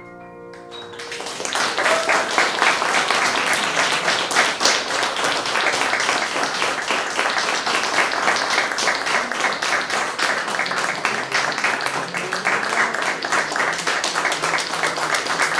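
Audience applauding, starting about a second in and holding at an even level.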